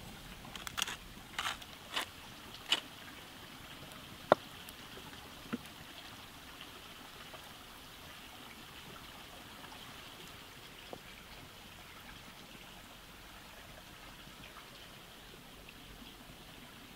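Steady hiss of running water, with a few sharp clicks and knocks in the first three seconds and a single loud crack about four seconds in.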